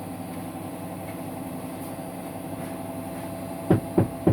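A small motor running with a steady hum, then three quick sharp knocks about a third of a second apart near the end.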